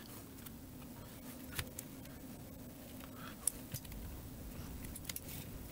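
Faint scattered clicks and taps from handling and prying apart a Keychron Q3 keyboard's case with its screws already out, over a low steady hum.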